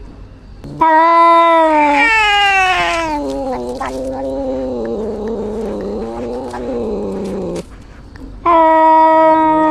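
Cat yowling: a long drawn-out cry that holds one pitch, then slides lower and dies away, followed near the end by a second yowl.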